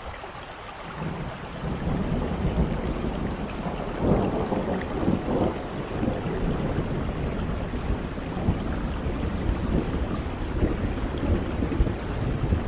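Steady rain with rolling thunder. A deep rumble swells about a second in, and a louder roll of thunder comes about four seconds in.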